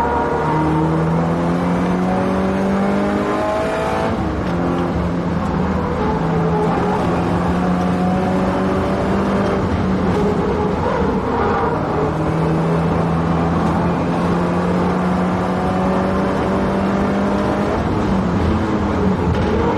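Subaru Impreza WRX STI's turbocharged flat-four engine pulling hard at full throttle on a fast lap. The pitch climbs steadily and drops back at each upshift: about four seconds in, again around ten to twelve seconds, and near the end. A thick layer of wind and tyre noise runs underneath.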